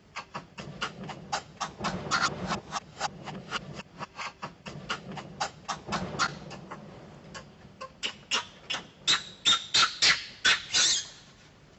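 Young long-tailed macaque squealing: a rapid string of short, sharp squeaks, about three or four a second, loudest near the end.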